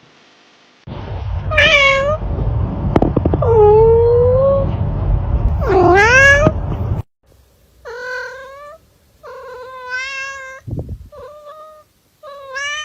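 Domestic cat meowing repeatedly: three loud, drawn-out meows over a heavy low rumble, then after a short break four more meows, the second of them long. A short low thump comes between the last two.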